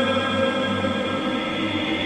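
Dark ambient drone music: many held tones sounding together, steady and unbroken.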